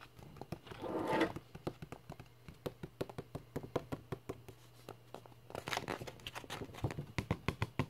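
Fingernails tapping and clicking lightly on a book, several taps a second, with two brief rustles of paper pages, about a second in and again near six seconds.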